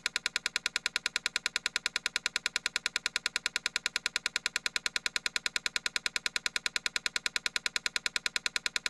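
Rapid, evenly spaced click sound effects, about ten a second, one for each tile slide as the animated sliding-tile puzzle rearranges itself.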